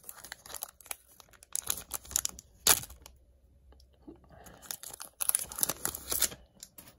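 Foil wrapper of an Upper Deck hockey card pack being torn open and crumpled in the hands, with irregular crinkles. There is a sharp loud crackle about three seconds in and a run of crinkling near the end.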